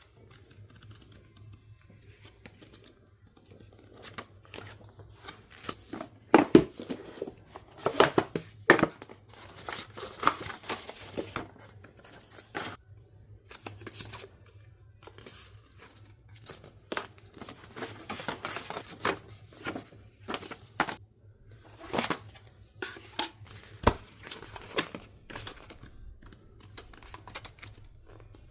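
Packaging being handled and opened by hand: plastic and paper crinkling, rustling and tearing in irregular bursts, busiest and loudest several seconds in, with a couple of sharp knocks.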